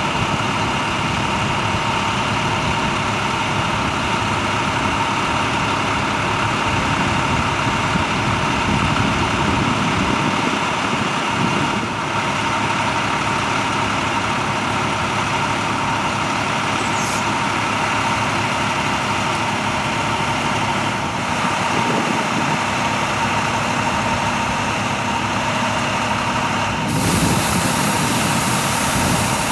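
Fire-department trucks and an ambulance idling, a steady heavy engine drone.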